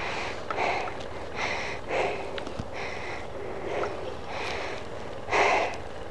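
A person breathing hard, a quick noisy breath every second or less, with the loudest one about five seconds in: the mountain biker is out of breath.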